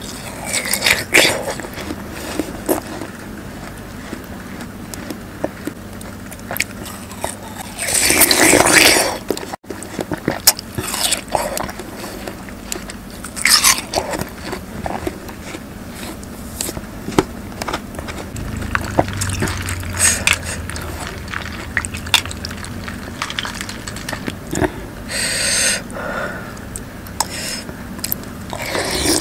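Close-miked biting and chewing of juicy watermelon: a run of sharp, wet crunches, with a few longer, louder bites about a third of the way in, near the middle and near the end.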